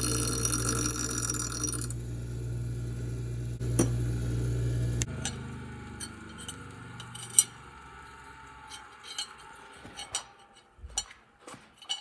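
An electric motor in a shop machine runs with a steady hum and a hiss for the first couple of seconds, then hums on alone and shuts off about five seconds in. After that, light metallic clinks and taps follow, like small steel pieces being handled.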